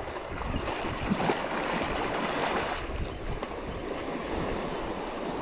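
Wind buffeting the microphone, with small waves washing up on a sandy beach.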